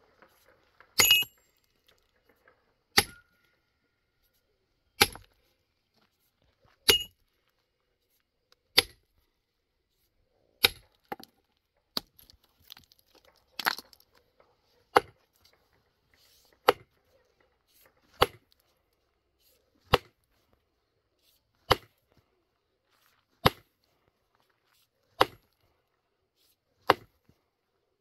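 Rock being broken by hand: a heavy hand tool strikes stone in sharp, evenly paced blows, roughly one every two seconds, with a few lighter knocks between them.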